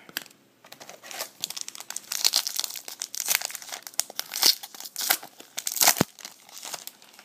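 A trading card pack's wrapper being torn open and crinkled by hand, with dense irregular crackling and one sharper snap about six seconds in.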